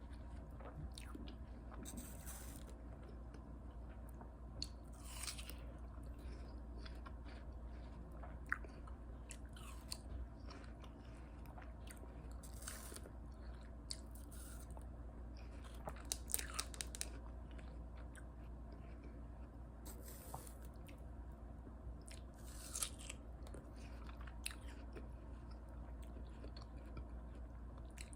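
Close-miked biting and chewing of juicy watermelon, with short crunchy bursts every second or two and a few sharper crunches in the middle, over a steady low hum.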